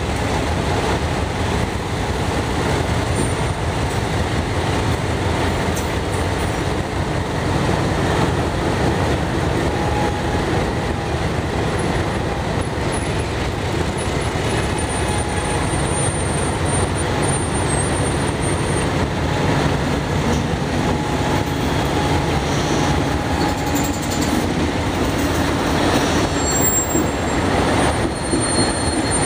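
Alco diesel locomotives rolling past close by, their engines rumbling steadily, with faint high wheel squeal now and then.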